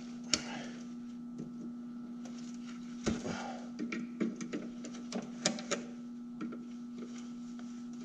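Scattered metal clicks and clinks of a hand tool working the steel spring adjuster on a snowmobile's rear suspension, being reset to stiffen the spring. A steady low hum runs under them.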